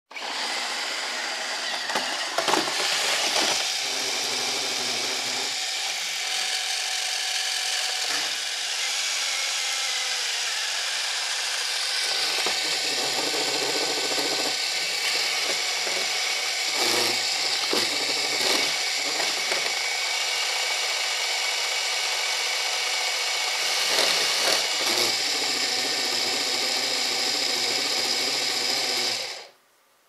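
iRobot Roomba robotic vacuum running: a steady whir of its vacuum motor and brushes with a high whine, broken by several sharp knocks as it bumps against a low metal furniture frame. Near the end it shuts off abruptly, having become stuck under the frame.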